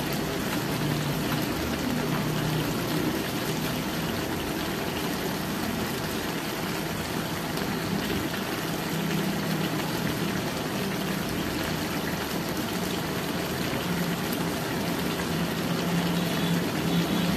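Pork intestines simmering in adobo sauce in a wide aluminium wok over a stove burner: a steady bubbling hiss, with a low hum coming and going underneath.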